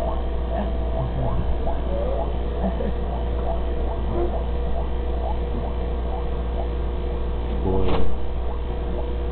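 Rotary vane vacuum pump running steadily with a low hum while it pumps the air out of a bell jar. A brief louder noise comes about eight seconds in.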